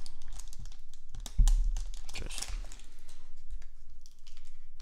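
Trading cards being flipped through by hand: a run of small, irregular clicks and rustles, with one louder thump about a second and a half in.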